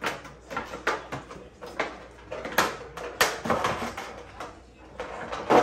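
Clear plastic packaging crinkling and rustling as a bottle is unwrapped by hand, in quick irregular crackles with sharper snaps, the loudest near the end.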